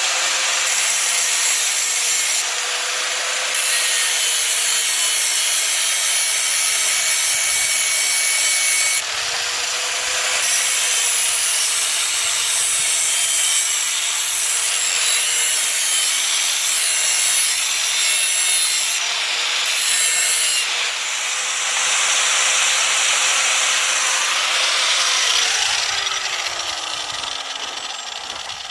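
Electric grinder running and grinding metal, its motor pitch dipping briefly several times as it is pressed into the work. Near the end the grinding stops and the motor winds down, its pitch falling.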